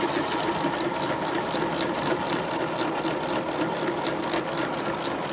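3D-printed model outboard motor running on its small electric motor, a steady whir of the motor and its printed drive-line gears turning the prop shaft.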